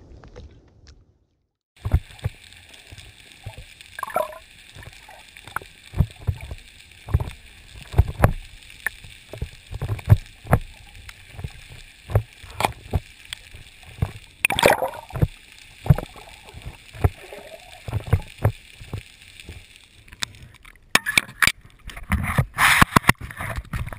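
Water gurgling and sloshing around a partly submerged action camera, with irregular knocks and thumps on its housing, more of them near the end. The audio drops out completely for about a second near the start.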